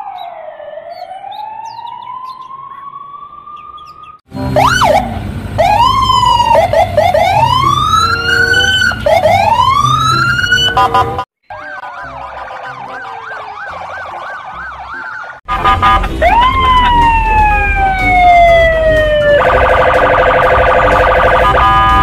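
Police car sirens in a string of short cut-together clips, with wailing and yelping tones that glide up and down and switch abruptly from one siren to another. In the last few seconds the glide gives way to a steady, harsh, buzzing tone.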